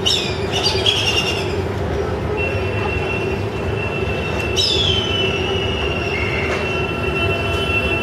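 Steady background rumble of passing traffic with high-pitched metallic squeals: a wavering squeal in the first second, then a squeal about halfway through that falls in pitch and holds as a steady whine for several seconds.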